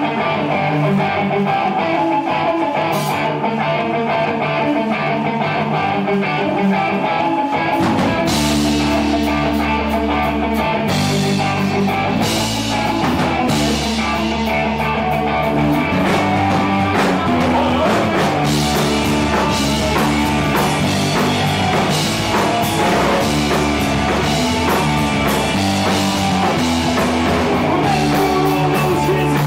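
Live rock band playing a song: a guitar opens on its own, and bass and drums come in about eight seconds in, the full band then playing on.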